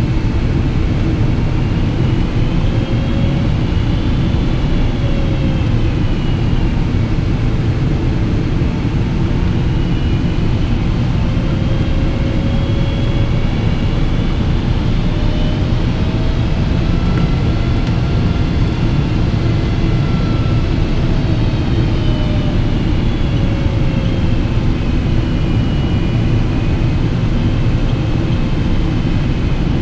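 Cabin noise inside a Boeing 777-200 with Pratt & Whitney PW4000 engines: a steady low rumble of engines and airflow, with faint engine tones that slowly rise and fall.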